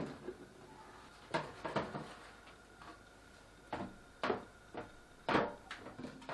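Light knocks and clacks, about seven in all, the loudest about five seconds in, of food containers, fridge shelves and drawers being handled.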